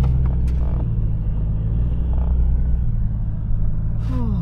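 Toyota 100 Series LandCruiser's engine running at low speed on a rough dirt track, heard from inside the cabin as a steady low hum. The engine note steps lower about one second in and again about three seconds in. A short falling squeak comes near the end.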